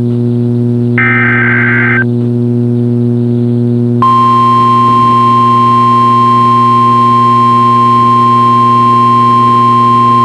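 NOAA Weather Radio Emergency Alert System test signalling: a one-second warbling burst of SAME digital header data about a second in, then after a pause the steady 1050 Hz warning alarm tone starts about four seconds in and holds. A steady low electrical hum runs underneath.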